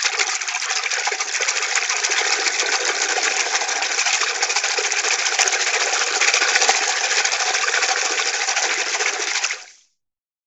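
A dense, continuous clattering noise made of many fine rapid clicks, cutting off sharply near the end.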